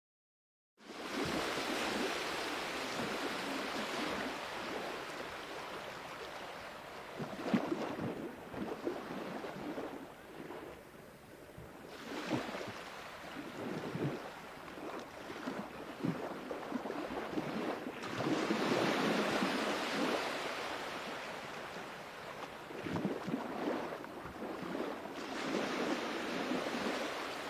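Sea waves breaking and washing onto a shore, the surf rising and falling in swells every few seconds. It starts abruptly after about a second of silence.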